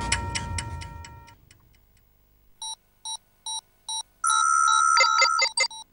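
A ticking news-music sting fades out, then an electronic graphics sound effect of short beeps like phone keypad tones: four evenly spaced beeps, then a steadier tone with quicker beeps over it.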